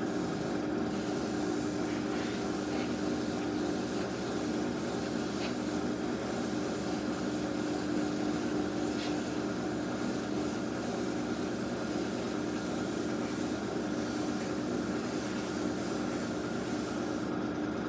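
Mr Hobby PS-290 fan-cap airbrush spraying primer, a steady hiss of air and paint over a steady machine hum. The hiss breaks off briefly about a second in and stops near the end as the trigger is let go.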